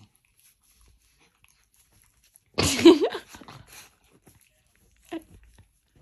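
A small black-and-tan dog gives one loud cry about two and a half seconds in, lasting about a second with a pitch that bends up and down, then a short, fainter cry near the end.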